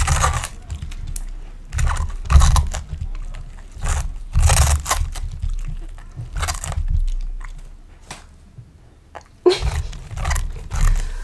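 Samoyed dog biting and chewing a raw head of cabbage, close to the microphone: loud, crisp crunches of the leaves, several separate bites a second or two apart, a quieter pause, then a final cluster of crunching near the end.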